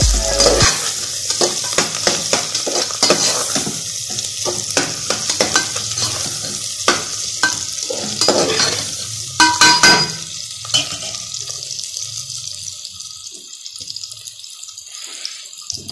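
Onions and garlic sizzling in hot oil in an aluminium pressure cooker, with a spoon stirring and scraping against the pot in many short clicks and a few louder clanks about nine to ten seconds in. The sizzle grows fainter toward the end.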